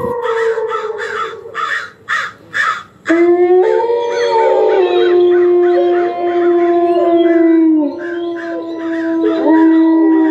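Canine howling from the horror show's soundtrack: several long howls overlapping, starting about three seconds in after a fading pulsing sound of about three beats a second.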